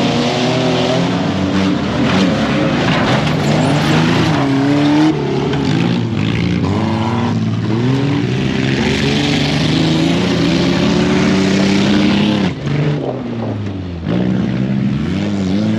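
Off-road race truck engines revving hard, the pitch climbing and falling repeatedly with throttle and gear changes, easing off briefly about twelve seconds in before picking up again.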